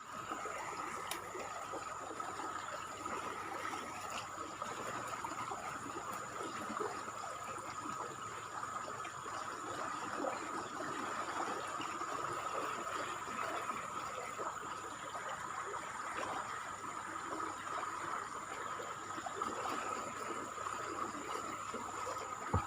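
River water flowing steadily, with a continuous rushing trickle and a steady high-pitched note underneath.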